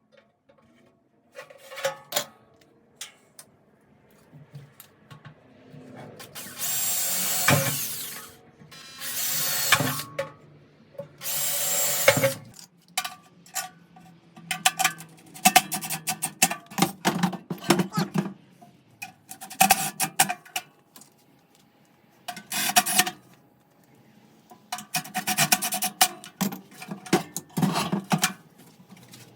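Power-tool and hand-tool work on sheet metal: three long stretches of drill-like hissing in the first half, then runs of rapid clicking and clattering.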